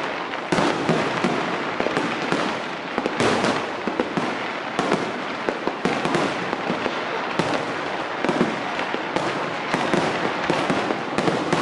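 Aerial fireworks going off: a rapid, irregular run of bangs and crackles, several a second, over a continuous crackling hiss.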